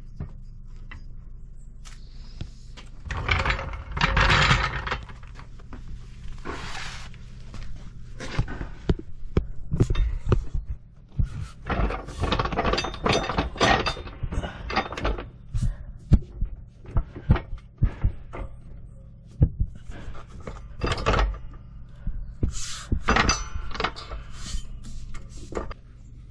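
Irregular knocks, clunks and bursts of rustling handling noise over a steady low hum.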